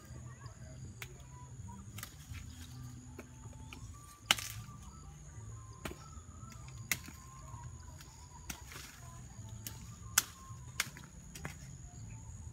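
Freshly dug cassava roots being snapped off the stem by hand: a series of sharp cracks at irregular intervals, the loudest about four seconds in and again near ten seconds, with soft rustling of roots and soil between them.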